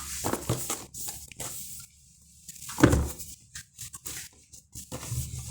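Handling of a product box and its packaging: irregular rustling and scraping with a louder knock about three seconds in.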